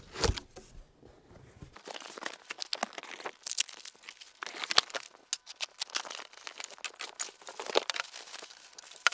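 Plastic wrapping and packaging crinkling and rustling in irregular sharp crackles as the plastic-bagged turntable parts and speakers are unpacked from their box.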